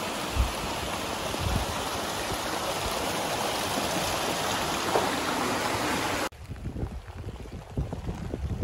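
A small stream rushing through a stone tunnel as a steady hiss of water. About six seconds in it cuts off abruptly, giving way to gusts of wind buffeting the microphone.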